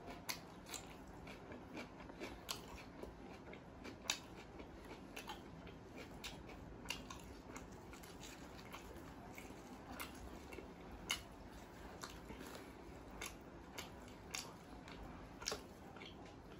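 Close-miked eating sounds: a person biting and chewing, with crisp crunches of raw cucumber and sharp wet mouth clicks scattered irregularly. Two louder crunches come about 4 and 11 seconds in.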